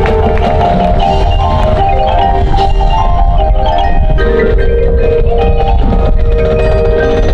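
Marching band music: held chords with mallet percussion such as marimba and glockenspiel playing quick runs of short notes over them.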